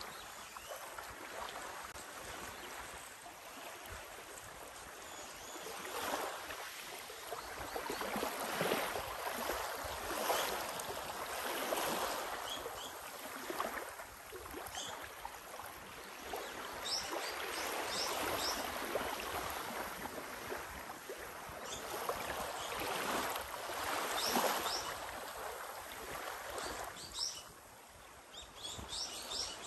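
Small waves lapping gently onto a sandy beach in shallow water, each wash swelling and fading every few seconds.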